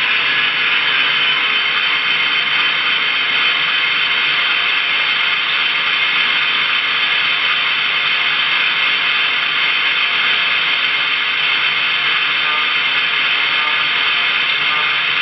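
Recorded gas-turbine locomotive sound from a QSI Revolution DCC sound decoder, played through the speakers of an Athearn Union Pacific Veranda turbine model. It is a steady rushing hiss of the running turbine with several thin steady tones over it, unchanging throughout.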